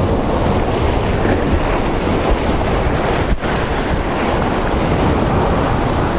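Strong wind buffeting the microphone over the steady wash of surf breaking against the jetty.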